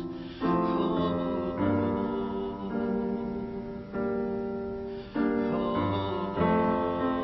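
Piano playing slow, sustained chords, a new chord struck about every second and left to ring and fade.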